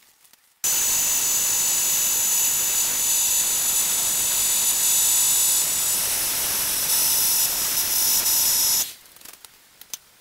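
Compressed-air paint spray gun spraying the helmet: a loud steady hiss with a faint whistle that starts about half a second in and cuts off abruptly near the end, followed by a few faint clicks.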